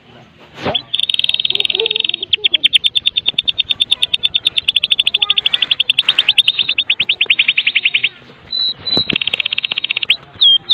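White-rumped shama (murai batu) giving its kretekan: a fast, even rattle of short repeated high notes, about ten a second, with dense buzzy stretches near the start and again near the end.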